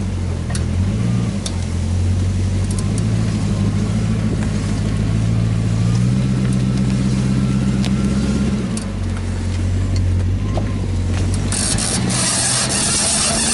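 Lexus SC400 being driven, its V8 engine making a steady low hum that shifts about 6 seconds in and eases near 9 seconds, with a faint wavering whine above it: the weird wheel noise, which the owner doubts is the bearings since the wheel is stiff. About 11 seconds in, a loud hiss of road or wind noise comes in.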